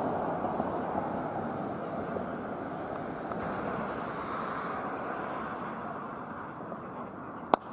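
Steady outdoor background noise, then near the end one sharp crack of a cricket bat striking the ball.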